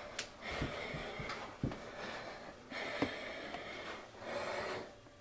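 Heavy breathing in four long breaths of about a second each, with a few soft thumps among them.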